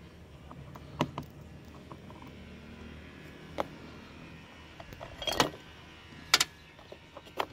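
Phillips screwdriver turning out the screws of a plastic licence-plate light cover: scattered small clicks and scrapes of metal on plastic, the sharpest a little after six seconds in.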